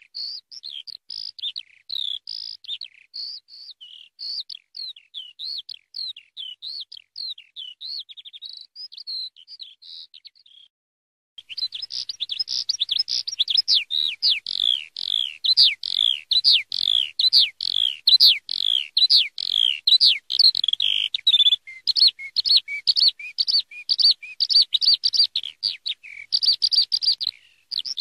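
Eurasian skylark singing: a long, unbroken stream of rapid high chirps, trills and warbles. It breaks off for about a second around ten seconds in, then resumes louder and denser.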